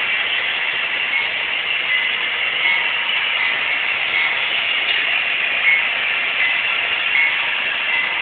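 Model train running on layout track: a steady high whir from the locomotive's motor and the wheels on the rails, with a light tick recurring a little more than once a second.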